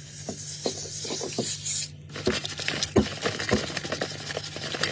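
Aerosol spray can of cleaner hissing steadily for about two seconds. After a brief break, a fainter hiss goes on with scattered rubbing and tapping.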